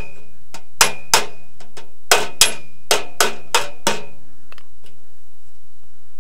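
Steel body hammer striking the thin stamped sheet steel of a 1943 Willys MB Jeep grill against a hand-held dolly: about eight sharp metallic taps with a short ring, the strikes stopping about four seconds in. The hammer-and-dolly work is straightening a crease in the side of the grill.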